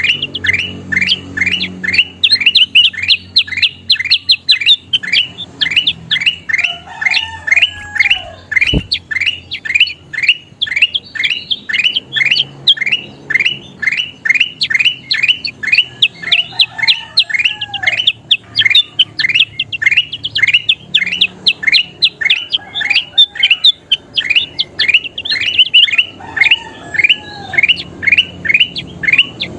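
Kutilang emas bulbul singing: a fast, unbroken string of short, sharp chirps, about three a second, with a lower curled note every several seconds.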